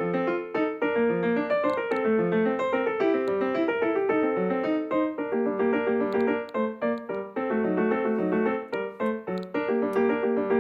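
Background piano music, a steady run of notes in a gentle rhythm.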